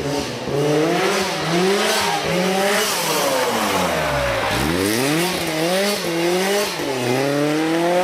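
Rally car engine under hard acceleration, its pitch climbing and falling back several times as it revs through the gears. About halfway through the revs drop steeply, then climb again.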